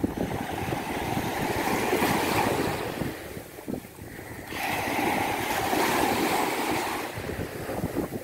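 Sea waves breaking and washing up a beach. They come in two surges, the second beginning sharply about four and a half seconds in after a brief lull.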